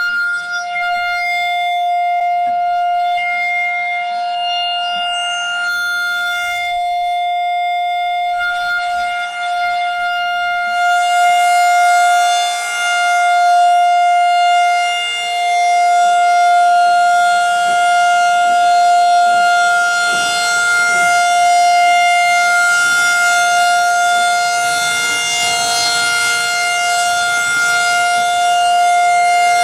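Federal Signal outdoor tornado warning siren sounding one steady tone, the alert signal for a tornado warning. A hiss joins in about a third of the way through.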